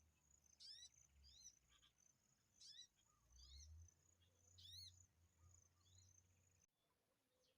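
Small bird chirping in short, sharp sweeping calls, about six bursts, over a steady high-pitched insect trill and a low rumble. All the sound drops out abruptly near the end.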